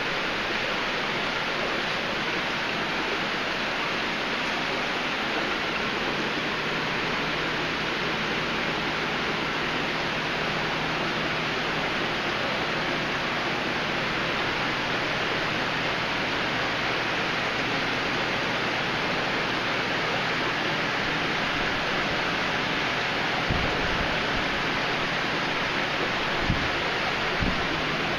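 Steady rush of falling and bubbling water from aquarium filters and aeration, with a faint low hum. A few soft, low bumps come near the end.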